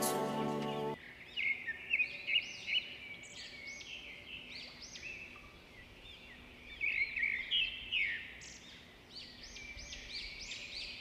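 Background music that stops about a second in, then birds chirping: many short, high chirps overlapping in clusters, loudest around two seconds in and again around seven to eight seconds in.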